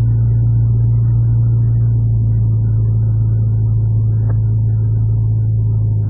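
Honda Civic EJ1's four-cylinder engine and road noise heard from inside the cabin: a steady low drone while the car cruises at light throttle, just under 2,000 rpm. A single faint click comes about four seconds in.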